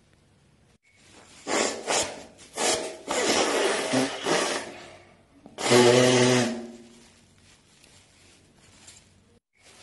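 A person blowing their nose into a tissue: three short blows, then a longer, broken blow, and a last, loudest blow with a honking tone about six seconds in.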